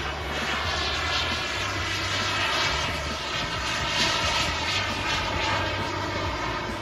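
Kingtech K210 G4 model jet turbine of a radio-controlled BAE Hawk in flight: a continuous high whine and rush of jet exhaust, swelling and easing several times as the jet moves across the sky, loudest about four seconds in.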